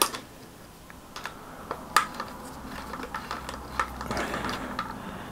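Hex key threading a bicycle headset top cap bolt into the fork's star nut, making a series of light, irregular metallic clicks and ticks.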